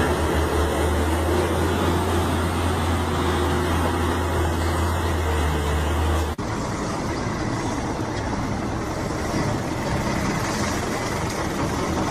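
Logging truck's diesel engine running steadily with a deep low drone. About six seconds in, the sound cuts off abruptly to a rougher, noisier engine and rumble without the deep drone.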